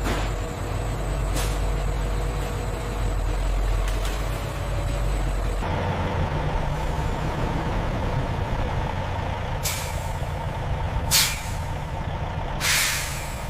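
A heavy engine running steadily at low pitch, its sound shifting about halfway through, with three sharp hisses of released air near the end: the loudest about eleven seconds in and a longer one just after.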